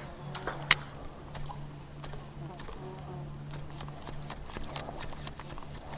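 Insects calling in one steady, unbroken high-pitched drone, with a low hum that cuts in and out and a single sharp click just under a second in.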